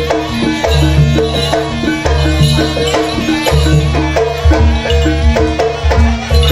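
Live Javanese jaranan gamelan music: drums pulsing steadily under a fast, repeating melody of struck pitched percussion.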